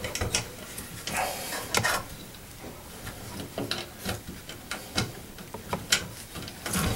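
Irregular small clicks and scrapes of metal parts in a bathroom exhaust fan housing as a replacement motor is held in place and its butterfly nut is turned by hand.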